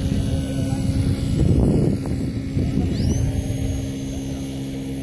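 Twin electric motors and propellers of an RC model plane running at a steady pitch, with a brief louder rush of noise about a second and a half in.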